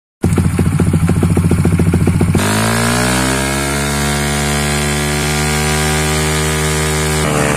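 Honda CRF150L's single-cylinder four-stroke engine running through a Norifumi Noctus T3 aftermarket slip-on exhaust: a pulsing idle of about ten beats a second, then revved up sharply about two seconds in and held at a steady higher speed, dropping back near the end.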